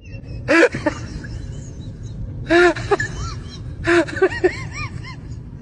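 Monkey calling in three bursts, each a loud cry followed by a string of quick squeaky chirps that rise and fall in pitch, over a steady low rumble.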